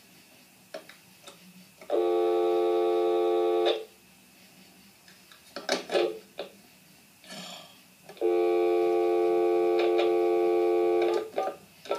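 A steady electronic chord-like tone sounds twice, starting and stopping abruptly, first for about two seconds and then for about three. Faint clicks and rustles come between and after.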